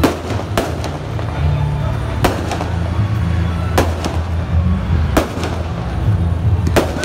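Aerial fireworks shells bursting in the sky: about six sharp bangs, roughly one every second and a half.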